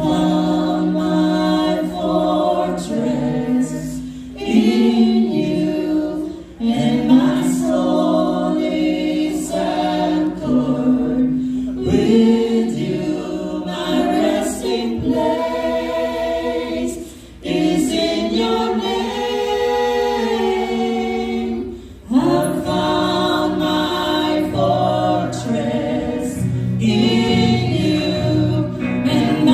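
A group of men and women singing a worship song together into microphones, with long held notes and short breaks between phrases.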